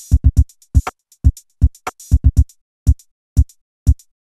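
Electronic music made of short, dry drum-machine hits with silence between them: deep thuds and sharper clicks in a stuttering, uneven rhythm, some coming in quick pairs.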